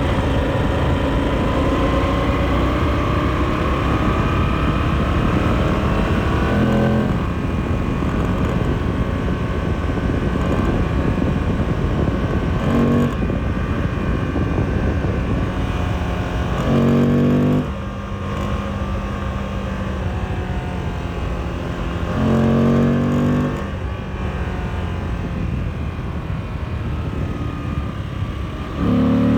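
Moto Guzzi V85 TT's air-cooled transverse V-twin running under acceleration, its note climbing over a steady rush of wind. A louder, deeper engine note comes in for about a second several times. A strange noise from the left cylinder shows up only when accelerating between 5000 and 7000 rpm.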